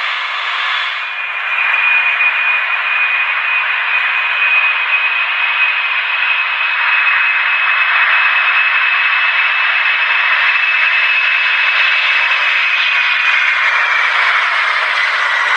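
Jet airliner engine noise: a steady rushing sound with a high whine that slides slightly lower in pitch near the end.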